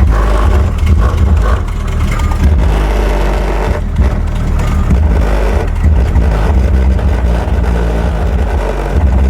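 Chevette's aftermarket car sound system playing music loud through its trunk subwoofers, with deep pulsing bass dominating.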